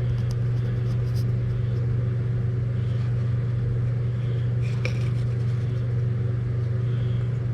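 Automotive smoke machine's air pump humming steadily as it pushes smoke into the intake to find a vacuum leak. There are a couple of faint clicks, one about five seconds in.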